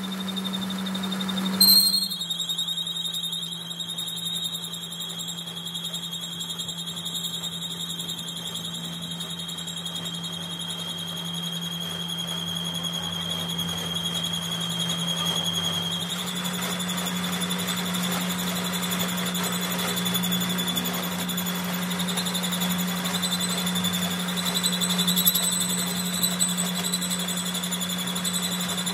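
A workshop machine running with a steady hum and a high whine. There is a short loud knock near the start, after which the whine dips slightly, and the sound shifts again about halfway.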